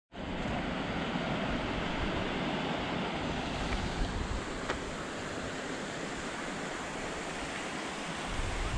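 Mountain creek rushing over rocks: a steady wash of running water.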